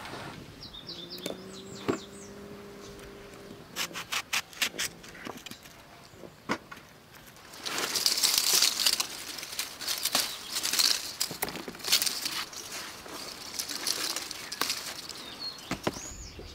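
Rustling and crackling of leafy garden vines as a hand pushes in among them, loudest for about a second near the middle, with scattered snaps and clicks. A bird gives short chirps near the start and near the end, and a low steady hum sounds for about two seconds near the start.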